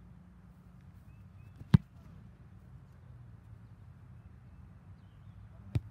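A football punted: one loud, sharp thump of the foot striking the ball about two seconds in, followed by a second, fainter thump near the end.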